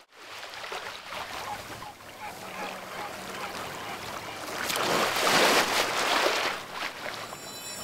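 Small waves washing on a sandy shore in the wind, with a faint low steady hum underneath. The wash swells louder for about two seconds midway.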